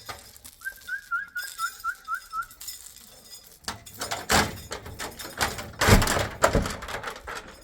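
A quick series of about eight short, rising whistled notes, each a little lower than the one before, followed about four seconds in by loud rustling and knocking noises.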